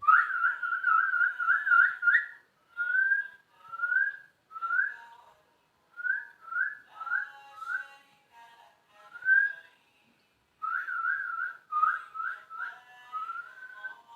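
Whistling: a wavering, warbled whistle for about two seconds, then a string of short upward-sliding whistled notes with brief gaps, then another warbled run and a slow rising whistle near the end.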